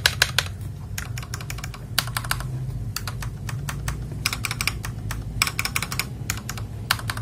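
Typing on a GamaKay LK67 mechanical keyboard: quick runs of crisp key clicks in short bursts, about one burst a second.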